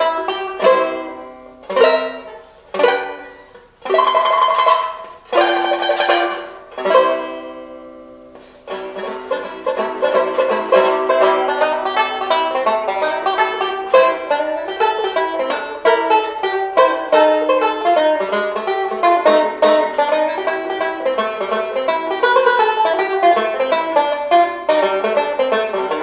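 1928 Vega Vegaphone Deluxe tenor banjo played solo in a slow blues. It opens with single strummed chords, each left to ring and fade, and from about eight and a half seconds in goes into a steady stream of quick picked notes.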